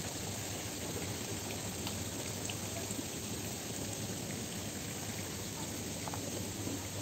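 Steady rushing hiss of dockside ambience with a low steady hum underneath and a few faint ticks.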